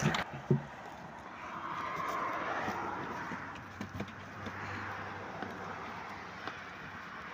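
Outdoor street ambience: a car passes, swelling and fading between about two and four seconds in, with a few faint knocks.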